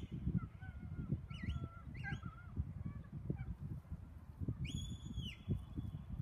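Geese honking: several short high calls that bend in pitch, then one longer steady high call about five seconds in.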